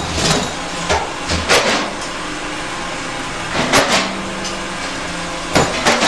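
Concrete hollow-block making machine running: a steady mechanical din broken by several sharp metal clanks and knocks as the chain conveyor moves a pallet of fresh blocks out.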